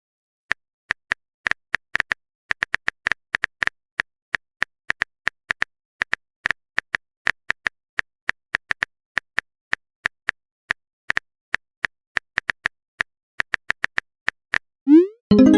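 Phone keyboard typing sound effect: a long run of short, sharp clicks at an uneven pace of about three or four a second.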